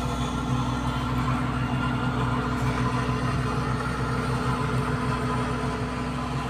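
Hitachi hydraulic excavator's diesel engine running steadily at a constant low speed, its hum holding one unchanging pitch.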